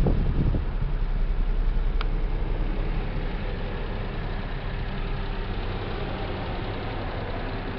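Honda Acty mini truck's small engine idling with a steady low hum, a faint click about two seconds in.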